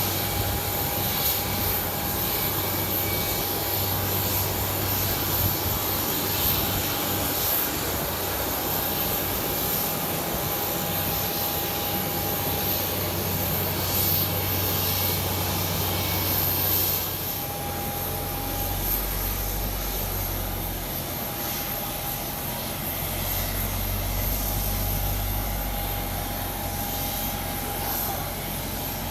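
Aircraft engines running steadily, with a steady whine over the engine noise. The sound gets a little quieter about two-thirds of the way through.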